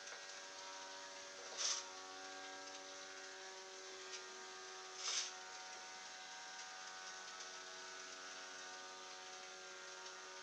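Small brushed quadcopter motor spinning the air propeller of a toy fan boat, a steady high electric whine. Twice, about two and five seconds in, a brief louder rush of noise breaks over it.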